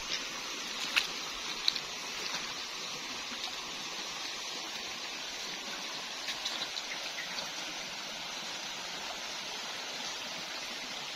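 Shallow stony stream flowing: a steady rush of running water, broken by a few brief sharp ticks and splashes.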